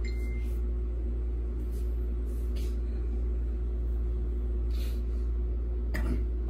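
A steady low rumble with a constant motor hum running underneath, broken by a few faint ticks, the clearest near the end.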